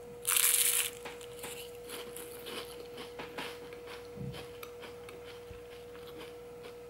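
Faint crackling of crisp tahini phyllo rolls (kuru baklava) being handled and bitten, with one short, louder crackle about half a second in. A faint steady hum runs underneath.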